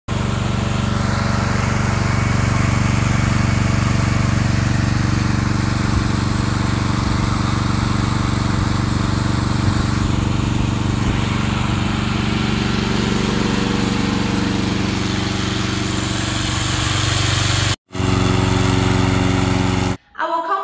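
Remote-controlled slope mower's engine running steadily under load, broken once by a short gap near the end.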